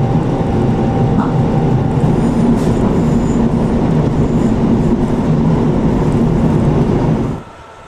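Train running along the track, a steady loud rumble of wheels on the rails that cuts off suddenly near the end.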